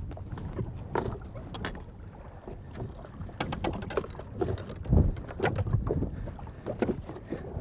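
Hooked muskie splashing at the surface beside a fishing boat, with wind on the microphone and water against the hull. Scattered sharp splashes come about a second in and again, thicker, between about three and six seconds, with a dull knock near the middle of that run.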